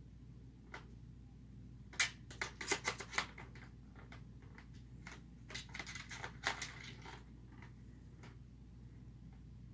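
Cat batting the ball around a plastic ring-shaped ball-track toy, the ball clattering in the track. There are two quick bursts of rattling clicks, about two seconds in and again from about five and a half to seven seconds, with a low steady hum underneath.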